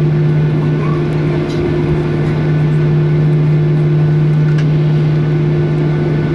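Cabin noise of a Boeing 737-800 taxiing after landing: its CFM56 engines at idle give a loud, steady drone with a low hum and a second steady tone above it.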